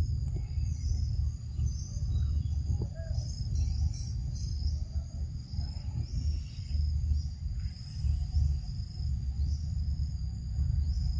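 Insects trilling steadily in high, continuous tones, over a loud, uneven low rumble.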